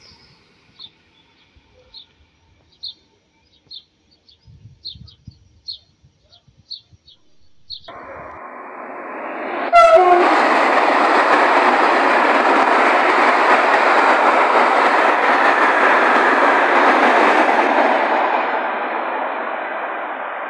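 A Renfe class 253 electric locomotive hauling a rake of LPG tank wagons rushes past at speed: a loud, steady rushing rumble sets in about eight seconds in, with a sharp burst as the locomotive arrives, then eases off as the wagons recede near the end. Before it, only faint, sparse high chirps.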